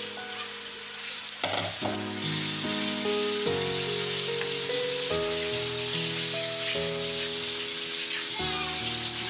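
Battered chicken pieces deep-frying in hot oil in a kadai: a steady sizzle and bubbling that grows louder about a second and a half in. Background music of held notes plays underneath.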